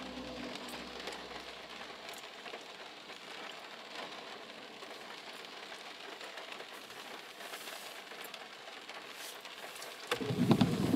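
Heavy rain drumming steadily on a stopped car's roof and windshield, heard from inside the cabin. Near the end a louder rumble with a held tone comes in.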